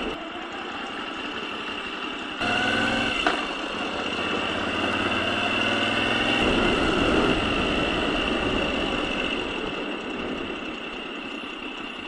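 Moto Guzzi V7 Stone's air-cooled transverse V-twin running at low speed, getting louder about two seconds in and again around the middle, over a steady high tone.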